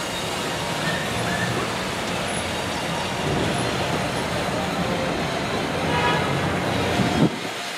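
Open-sided parking tram running along the road, its engine and tyres giving a steady rumble. A short knock comes about seven seconds in, after which the low rumble suddenly drops away.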